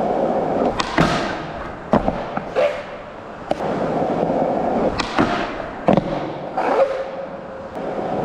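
Skateboard wheels rolling on concrete, broken by a series of sharp clacks and knocks from the board: pushes, the tail popping and the board striking a bench ledge during a back noseslide back 270 out attempt.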